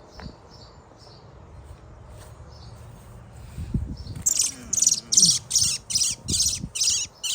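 A bird calling: a few faint chirps near the start, then from about four seconds in a loud run of harsh, high chirps repeated evenly, about two to three a second.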